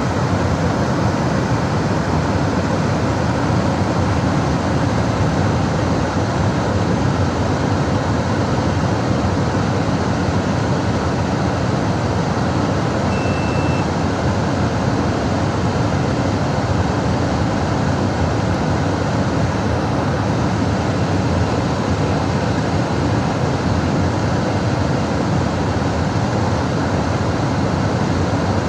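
Furnace blower motor running steadily, pushing air through the heat exchanger to cool it down after the burner has shut off.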